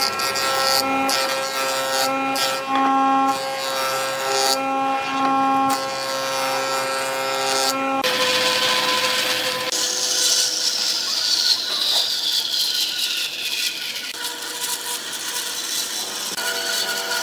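Woodworking power tools cutting a large hardwood block. For the first eight seconds a jointer runs with a steady whine whose pitch shifts as the block is fed. After that a bandsaw cuts with a noisy rasp, and a whine falls in pitch for a few seconds in the middle.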